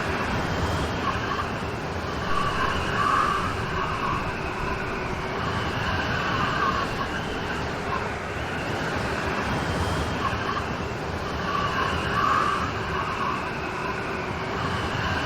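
Steady rain noise at an even level, with a fainter sound rising and falling in pitch through it that comes back about every nine seconds.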